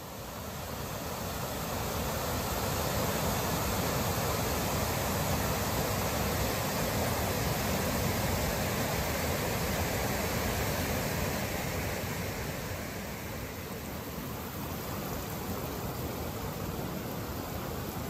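Whitewater of McDonald Creek rushing over McDonald Falls and its rapids: a steady rush of water that swells in over the first few seconds.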